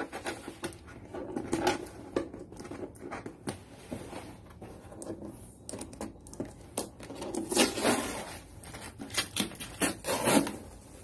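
Packing tape on a cardboard box being scratched at with fingernails and peeled off by hand, with scraping, rustling and knocks as the cardboard is handled. There are two louder rasping bursts of tape pulling away, a little past halfway and near the end.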